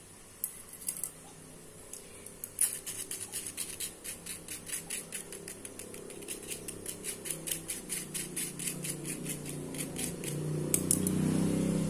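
A fine metal mesh strainer ticking rapidly, about five times a second, as beaten egg mixture is worked through it into a glass bowl. A low hum builds and grows louder near the end.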